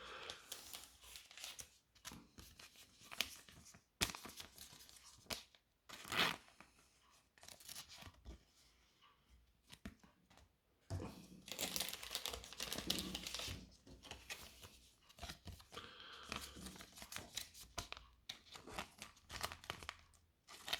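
Pokémon trading cards and plastic card sleeves being handled: on-and-off crinkling and rustling of plastic, with a few sharp clicks.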